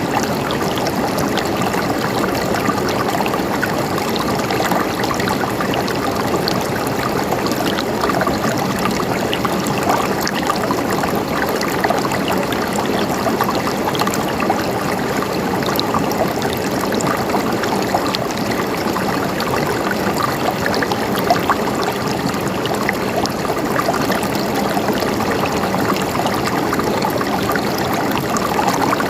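River water flowing over rocks in a steady rush with many small splashes and trickles.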